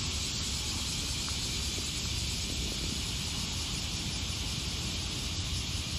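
Steady outdoor background noise: an even high hiss over a low rumble, with no distinct sounds standing out.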